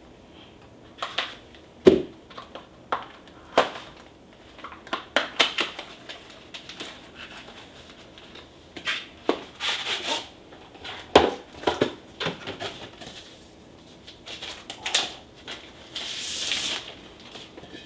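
Irregular clicks and knocks with short rustles of packaging as a keyboard palm rest is unpacked and handled; a longer rustle comes near the end.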